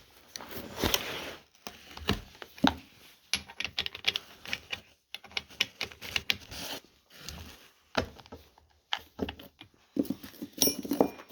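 Irregular metal clicks and taps of a chainsaw combination wrench (scrench) being fitted to and turning the bar-mounting nuts on a Stihl MS 460 chainsaw.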